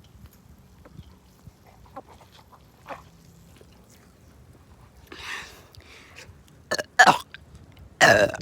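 A person gulping carbonated sparkling water, with faint swallowing clicks and a breath. Near the end come a few loud, abrupt bursts and then a longer pitched burp: the fizz forcing its way back up during the chug.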